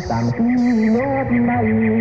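Film soundtrack music: a slow, wavering melodic line over a low sustained tone, with two short high hissing sounds in the first second.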